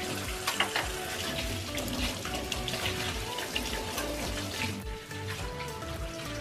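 Kitchen tap running into a steel pan of cut wild yam pieces in a stainless-steel sink, the water splashing as the pieces are rinsed by hand.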